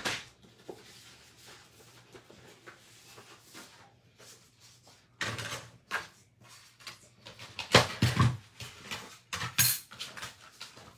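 Craft supplies handled on a tabletop: light rustling of paper and small clicks, then a run of louder clatters and knocks about eight and nine and a half seconds in as a die-cutting machine is set in place.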